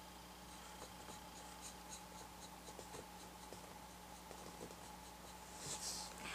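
Flat paintbrush scratching lightly across a painted board while laying down a base coat: a string of faint short strokes, then a louder brief rustle near the end.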